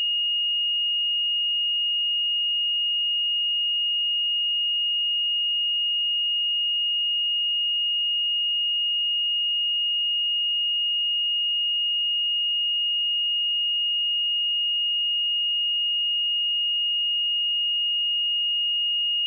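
A steady pure sine-wave test tone at 2858 Hz, held at one pitch and level without a break: a single high whistle-like tone for checking speakers or headphones.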